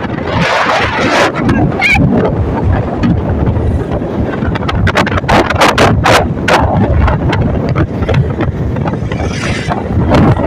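Wind buffeting the microphone on a moving motorcycle: a loud, gusty rush over road and engine noise, with sharper gusts around the middle.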